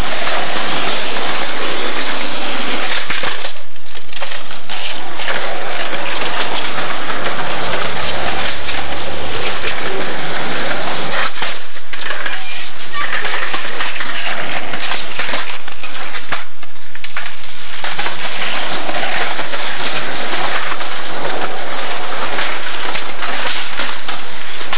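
Skateboard wheels rolling on concrete close to a camcorder microphone, heard as loud, distorted rumbling noise with board clacks, broken by a few short drops about 4, 11 and 17 seconds in.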